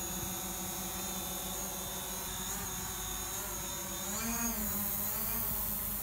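DJI Mavic Pro quadcopter's propellers whining steadily. From about halfway the pitch wavers up and down, with a brief rise about four seconds in.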